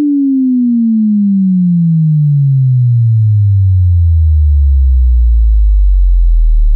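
Pure sine-wave test tone sweeping steadily down in pitch into deep bass, then holding at the lowest pitch from about four and a half seconds in. It is a headphone test sweep, played identically in both channels to check that the left and right drivers match. A faint steady high tone sits above it.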